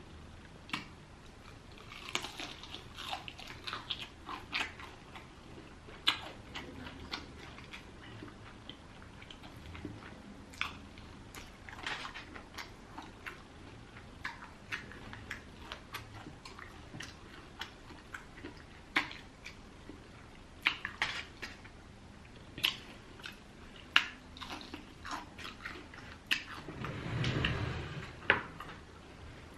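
Close-up chewing of fried chicken: scattered crisp crunches and wet mouth clicks and smacks. Near the end a louder, low, muffled sound rises briefly.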